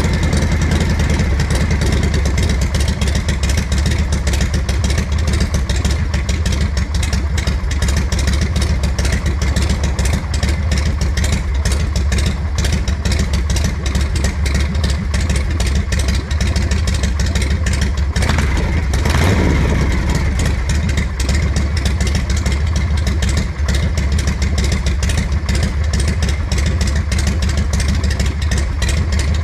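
1981 Harley-Davidson Shovelhead V-twin running at a steady idle while still cold, just after a kick start, with a brief sweep falling in pitch about two-thirds of the way through.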